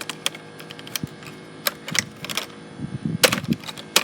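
Hard plastic parts clicking and rattling irregularly as a computer case piece is handled and pressed back into place, with a louder burst of clacks about three seconds in.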